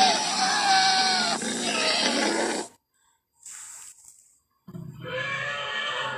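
Allosaurus creature sound effect: a wavering pitched call that cuts off suddenly a little under three seconds in, a short breathy hiss, then a second, lower growling call near the end.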